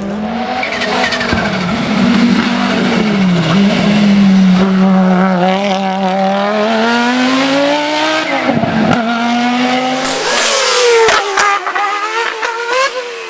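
Audi Sport Quattro S1 E2 rally car's turbocharged five-cylinder engine revving hard, its pitch rising and falling through gear changes. In the last few seconds the engine note thins and several sharp cracks are heard.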